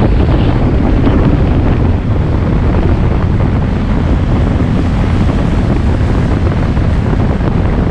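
Loud, steady wind noise buffeting the microphone of a camera on a moving motorbike, with the rush of the ride underneath.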